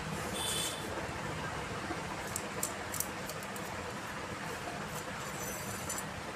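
A few light clicks and a short scrape from the metal shaft and inner rod of a laparoscopic vessel sealer as they are handled and taken apart, over a steady background hiss.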